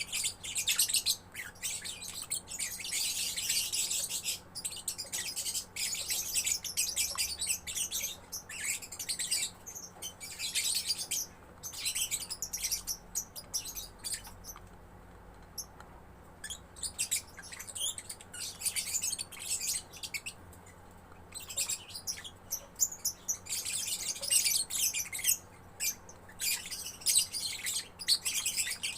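Young lovebird chattering in long, fast runs of high-pitched chirps, dropping back to sparse chirps for several seconds midway before starting up again.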